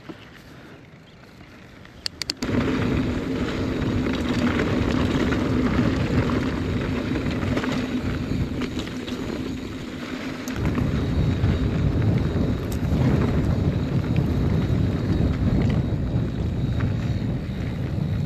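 Wind buffeting the microphone and tyre noise from a mountain bike rolling downhill on a dirt trail. It starts loudly about two seconds in, after a few sharp clicks, and from about halfway through there is more low rumble.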